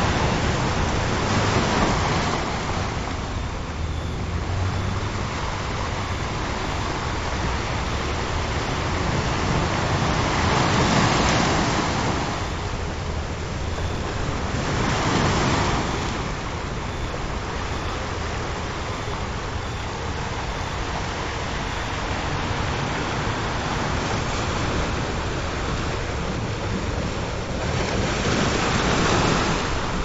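Ocean surf: waves breaking and washing up, the rush swelling and falling back every few seconds, loudest about 2, 11, 15 and 29 seconds in. Faint steady low tones hum beneath the surf.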